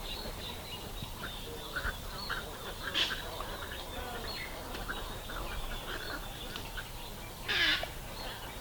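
Wild birds calling, many short calls over each other. A brief louder call comes about three seconds in, and a louder, harsher call near the end.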